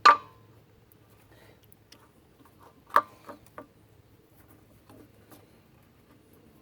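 Sharp metallic clinks of a wrench and brake-hose fitting being handled: a loud clink with a short ring at the start, another about three seconds in followed by two lighter taps, and a few faint taps near the end.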